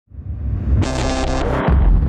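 Deep rumbling boom sound effect swelling in, with a bright, pitched synth-like tone laid over it for about a second in the middle.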